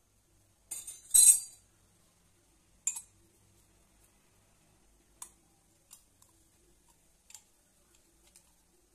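Stainless steel murukku press parts clinking as they are handled: a sharp rattling clink about a second in, another near three seconds, then a few faint ticks.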